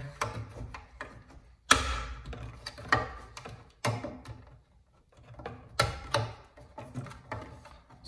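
Screwdriver clicking and knocking against a plastic round electrical box as a cable is worked in through a knockout: irregular sharp clicks, the loudest a little under two seconds in and again near six seconds.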